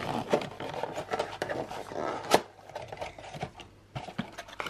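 A small cardboard gift box being opened by hand: irregular rustling, scraping and tapping of the cardboard flaps, with one sharper snap about two and a half seconds in.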